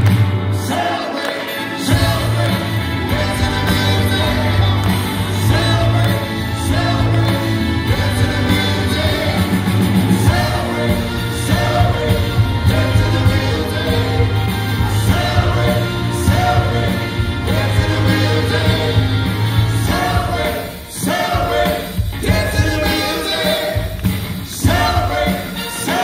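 Loud live rock band playing with a male lead singer singing into a microphone, over a strong steady bass.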